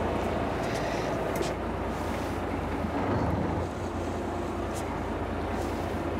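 Fishing boat's engine running steadily with a low hum, and a few faint ticks over it.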